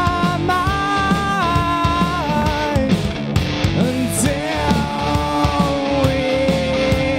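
Live rock band playing with drums, bass guitar and electric guitar, loud and steady, with the singer's voice holding long, bending notes on top.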